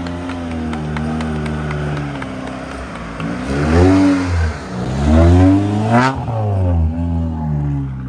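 Modified Suzuki Gypsy off-road racer's engine running steadily, then revved up and down three or four times in quick succession as the vehicle pulls away on a dirt track.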